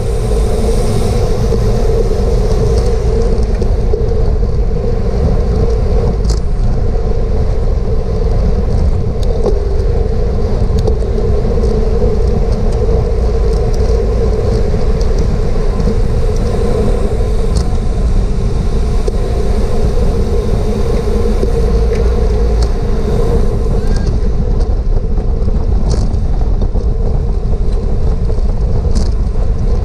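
Wind rushing over a GoPro's microphone as a bicycle races at speed, loud and steady, with a steady hum underneath and a few faint ticks.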